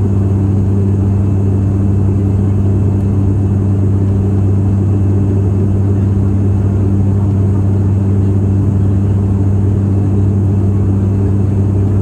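Steady drone of a turboprop airliner's engines and propellers heard inside the cabin: a loud, even low hum over a rushing hiss, unchanging throughout.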